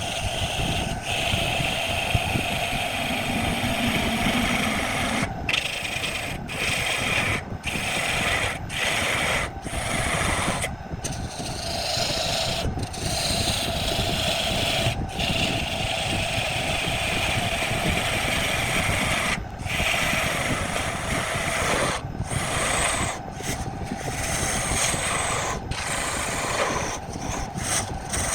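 Wood lathe running with a turning tool cutting into the spinning workpiece: a steady hum under a continuous scraping, rasping cut, broken by many brief gaps.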